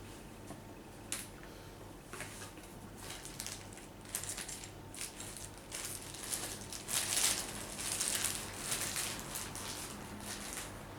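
Small computer hardware being handled and fitted by hand: a run of clicks, taps and scratchy rustling, busiest in the second half.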